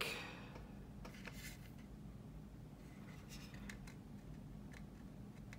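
Faint handling sounds: a few light ticks and rubs as fingers turn and shift a sanded plastic model wing part, over a low steady hum.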